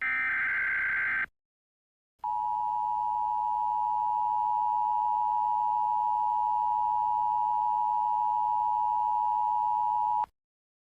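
Emergency Alert System tones: the last of the SAME data-header bursts, a short electronic warbling screech, then after about a second of silence the two-tone EAS attention signal (853 and 960 Hz together) sounds steadily for about eight seconds and cuts off abruptly.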